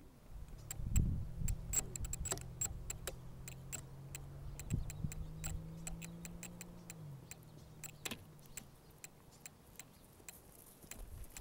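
Faint, irregular ticks and clicks with a low steady hum. The hum drops away about seven to eight seconds in, after which only the sparse clicks remain.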